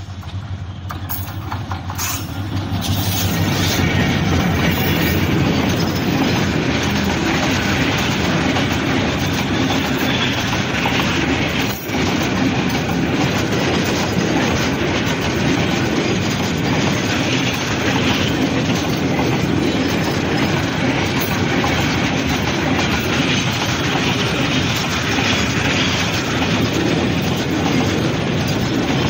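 Diesel-hauled freight train passing close by: the locomotive draws near and goes past, growing louder over the first few seconds, then a long string of tank wagons rolls by steadily on the rails.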